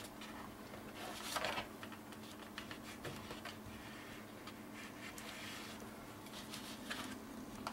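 Hands pressing and rubbing cardstock, paper scraping and rustling with small taps as the folder is pushed down onto score tape; the loudest scrape comes about a second and a half in. A faint steady hum runs underneath.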